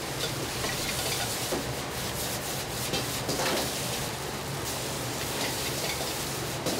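Metal ladle scraping, stirring and tossing fried rice in a wok over a high gas flame, with steady sizzling.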